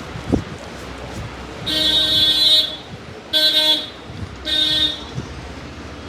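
A vehicle horn honks three times, the first a long blast of about a second and the next two shorter, each at one steady pitch.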